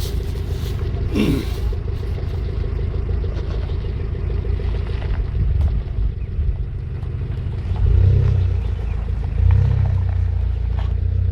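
A 4x4's engine running steadily under off-road driving, with a heavy low rumble that swells louder twice near the end. A brief falling squeal comes about a second in.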